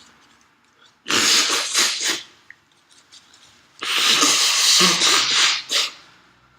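A person forcing air out hard through the nose twice: a pulsing burst about a second long, then a longer burst of about two seconds.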